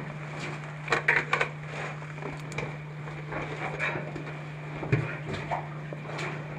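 Scrapes and knocks of a caver's body, boots and gear against rock as he crawls through a tight squeeze. There is a cluster of knocks about a second in and another near five seconds, over a steady low hum.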